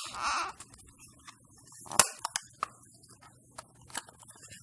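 Plastic action-camera waterproof housing being handled after being opened: a sharp click and a short scrape, then a louder click about two seconds in and several small clicks and knocks.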